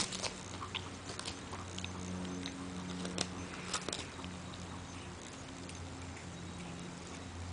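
A dachshund gnawing and chewing a dried pollack fish chew: scattered crunching and crackling clicks, thickest in the first few seconds, over a steady low hum.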